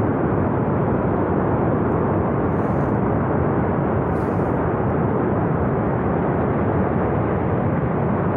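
Loud, continuous roar of a flash flood and its debris surging down a narrow gorge, steady with no breaks.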